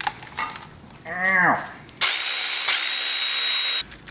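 Cordless electric ratchet running for about two seconds with a steady high buzzing whir, backing out a camshaft sprocket bolt on an LS V8's timing set.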